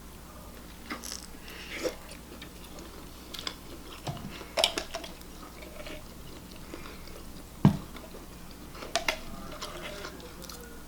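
Close-up eating sounds of lobster miso ramen: chewing and smacking with scattered small clicks, and a sharp knock about two-thirds of the way through.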